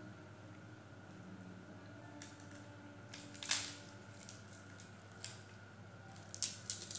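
Fingers tearing and crumbling a flaky paratha in a steel plate: scattered crisp crackles and light taps, the sharpest about three and a half seconds in and a quick cluster near the end, over a faint steady hum.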